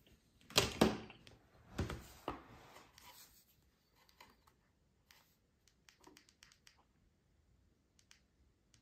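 Handling clatter: several sharp knocks and scrapes in the first three seconds, then light, scattered clicks.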